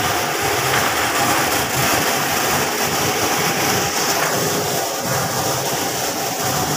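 Steady loud din of running cashew-processing machinery.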